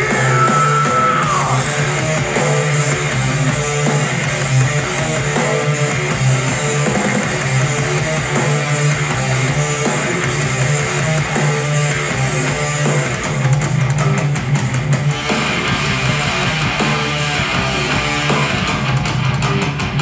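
Rock music with electric guitar and bass played at full volume through a Google Home Max smart speaker, heard in the room. It is loud and steady. At these loud volumes the reviewer hears a lot of distortion, with the tweeters and mids overpowering the bass.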